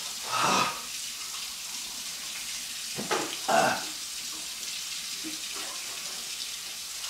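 A man's breathy, pained groans as his mouth burns from spicy food: one near the start and two more around three seconds in, over a steady background hiss.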